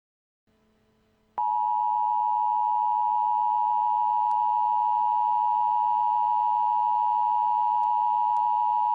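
Emergency Alert System attention signal: the two-tone alarm of 853 and 960 Hz sounded together, a steady unwavering dual tone that starts about a second and a half in. It announces that an emergency alert message is about to be broadcast.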